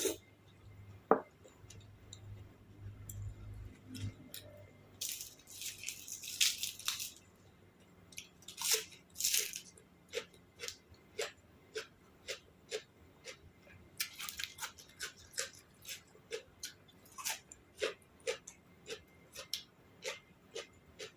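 A person chewing crunchy food close to the microphone: a few loud crunching bites, then steady wet chewing clicks about two a second.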